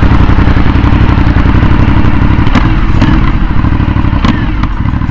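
Aprilia Shiver 900's 90-degree V-twin engine running as the motorcycle rides at low speed. There are a few sharp knocks, around two and a half and three seconds in and again past four seconds.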